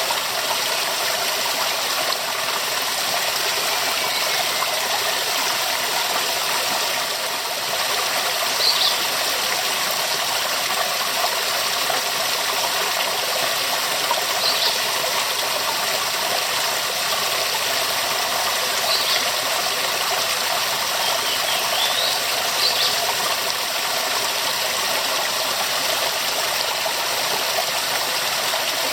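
Waterfall: a steady, full rush of falling water, with a few short high chirps now and then.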